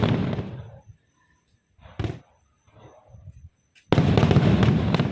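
Fireworks going off. A loud burst fades out over the first second, a short sharp bang comes about two seconds in, and another loud crackling burst starts near four seconds in and lasts about a second.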